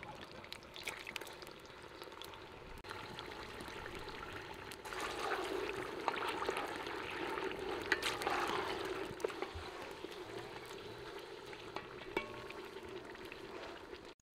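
Beef chunks sizzling in hot fat in a cauldron over a wood fire: a steady hiss with scattered pops and crackles, louder about five seconds in, as a wooden spoon stirs the meat. The sound cuts off suddenly just before the end.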